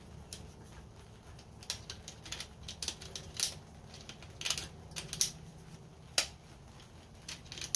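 Irregular sharp clicks and short clatters, about fifteen in all, the loudest about six seconds in, over a faint low hum. No engine cranking or running is heard: the lawn tractor's starter fails to turn over, which is put down to bad connections on the battery pack.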